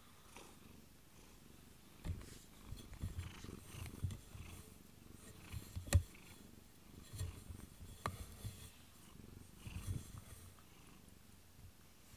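Domestic cat purring close up, in low rhythmic pulses that begin about two seconds in. A sharp click sounds about halfway through.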